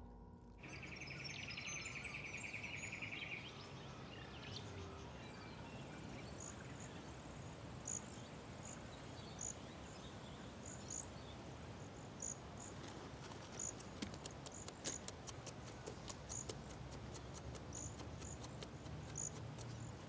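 Quiet forest ambience with a rapid trill near the start, then a run of short, high chirps about once a second and scattered faint clicks.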